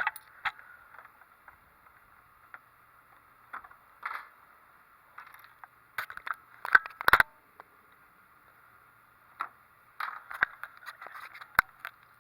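Scattered plastic clicks, knocks and scrapes as a Lego coin mechanism is handled, with a tight cluster of sharp knocks about seven seconds in and another run of clicks near the end.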